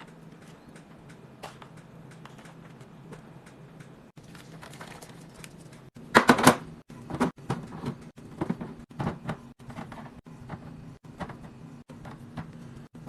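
Small clicks and knocks of food packages and containers being handled and set down, with a louder clatter about six seconds in.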